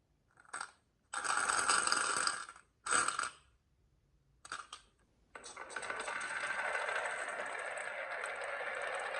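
Marbles rolling and rattling down a marble run: a few short bursts of rolling in the first half, then continuous rolling from about halfway through.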